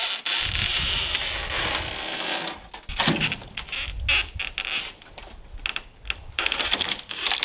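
Wooden shipping-crate side panels being pulled off and handled: a steady scraping rustle for the first couple of seconds, then a series of sharp knocks and scrapes of wood against wood.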